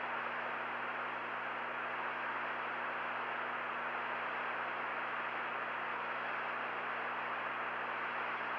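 Steady hiss of an open radio communications loop between transmissions, with a low electrical hum underneath.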